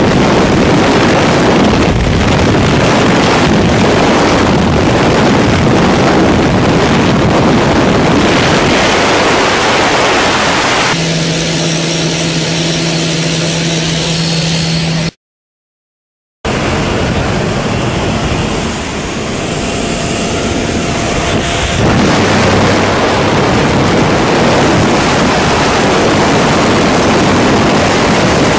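Loud wind noise rushing over the microphone of a skydiver in freefall. About eleven seconds in, it gives way to a light aircraft's engine running with a steady hum on the runway. After a sudden cut of about a second, the wind noise returns, loud again near the end at the aircraft's open door in flight.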